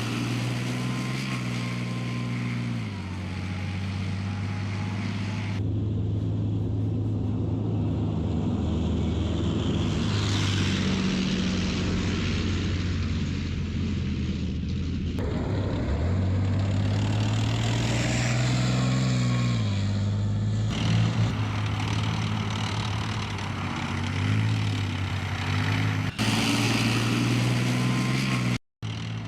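Leopard 2 tank's V12 diesel engine running, its pitch rising and falling as it revs. The sound changes abruptly several times.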